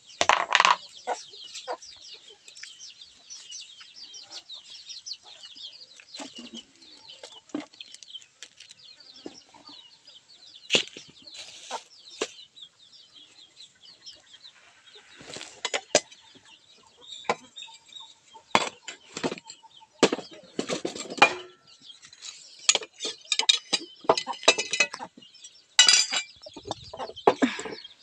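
Chickens clucking, with a dense chatter of short high chirps through the first half. Sharp knocks and clatters come in clusters in the second half.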